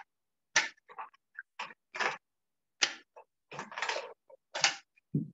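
Ice cubes clattering out of a plastic tub into a blender jar: a string of short, irregular clinks and rattles, about a dozen in five seconds.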